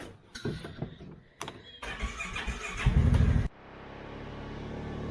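A TYM T574 compact tractor's diesel engine being started: a short burst of starter cranking, then the engine catches about three and a half seconds in and settles into a steady idle. A few knocks and clatter come before it.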